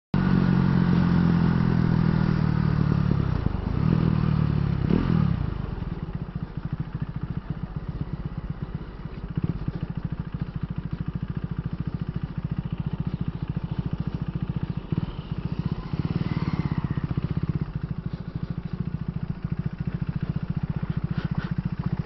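KTM Duke 390's single-cylinder engine running under way. It holds a steady note for the first few seconds, the note falls about five seconds in, and then the engine settles into a quieter, fast, even chugging at low revs.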